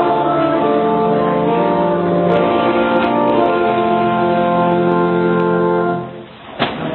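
Church pipe organ playing held chords that change every second or so, the last chord dying away about six seconds in. A short knock follows just before the end.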